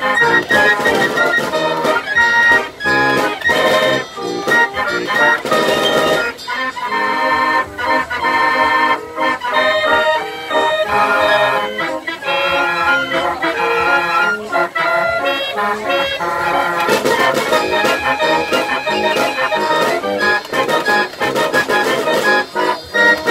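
1898 87-key Gavioli fairground organ playing a lively tune, its pipes sounding together with the beat of its bass drum, worked from punched cardboard book music.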